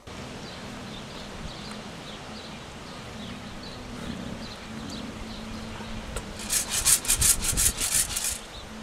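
A quick run of rasping scrapes, about eight a second, lasting roughly two seconds from about six seconds in, over a steady background with a low hum and small high chirps.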